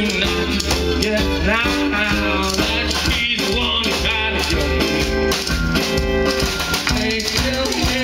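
Live rock band playing loudly and steadily, with guitar and drums.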